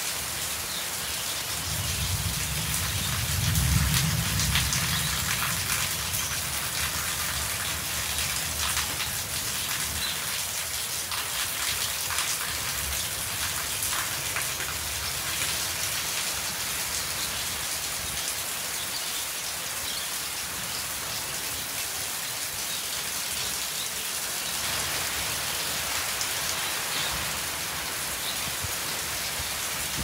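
Steady rain falling on corrugated metal roofs and a wet concrete yard, with scattered close drips. A low rumble swells and fades within the first few seconds.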